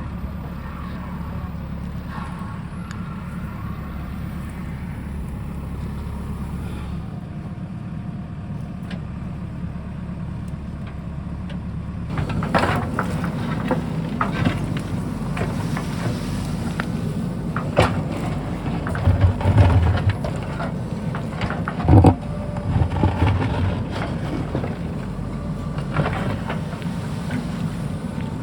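JCB backhoe loader's diesel engine running steadily; from about twelve seconds in, knocks and scrapes of the bucket working rock and soil join it, with a few loud thuds.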